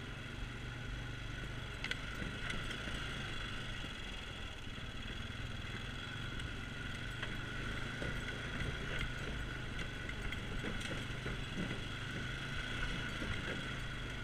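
ATV engine running steadily at low trail speed, with occasional small knocks and rattles over the rough dirt.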